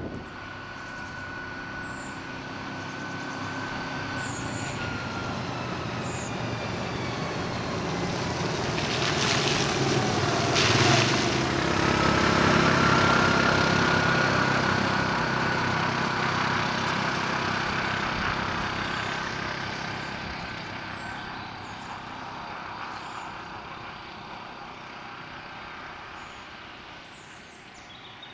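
Quad bike (ATV) engine with a steady whine, growing louder as it approaches, passing close about halfway through, then fading as it drives away.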